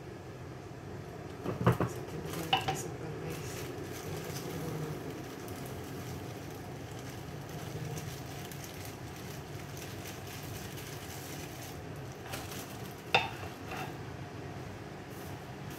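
A wooden spatula stirs a coconut-milk mixture for biko in a stainless steel pan, knocking sharply against the pan about two seconds in and again near the end, over a steady low rushing background.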